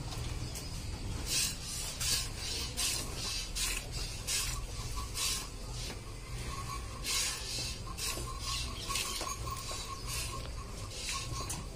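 Water buffalo being hand-milked: jets of milk hiss into a steel bucket in short squirts, about one or two a second, with a brief pause midway.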